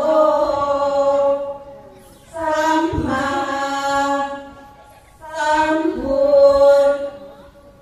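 A women's group chanting sarabhanya, a Thai Buddhist verse recitation, in unison in long, drawn-out melodic phrases. Three phrases, with short pauses between them, the second starting about two and a half seconds in and the third about five seconds in.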